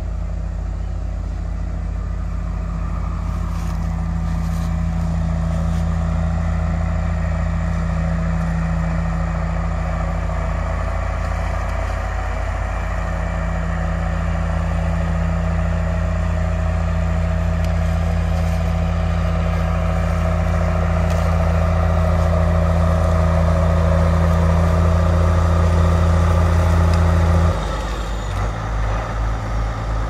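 Case IH Magnum 8940 tractor's diesel engine running steadily as it pulls a loaded grain cart up to a grain truck, growing louder as it nears. About 27 seconds in the note drops suddenly to a lower, throbbing idle as the tractor stops alongside.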